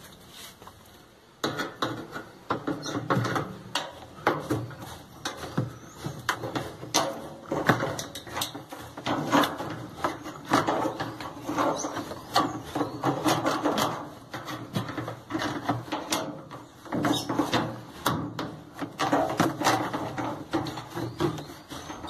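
Pliers and a screwdriver working at a washing machine's tub suspension rod, making irregular clicks, knocks and scraping of metal and plastic as the rod is worked loose. It starts about a second and a half in.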